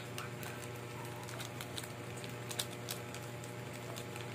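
Faint scattered clicks and crinkles of a clear plastic sleeve being handled around a spare SJCam action-camera battery, over a steady low hum.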